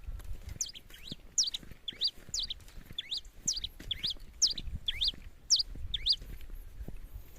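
Pileated finch (cravina) singing: a rapid run of short, high, sweeping chirps, repeated about twice a second.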